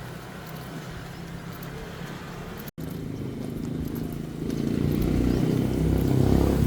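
A motor vehicle's engine running close by, its low hum growing steadily louder through the second half. The sound cuts out completely for an instant a little before the middle.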